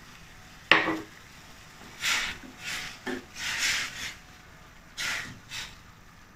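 A wooden spatula stirring and scraping through vegetables and broth in a stainless steel pan, in a run of short swishes. A single clink comes a little under a second in.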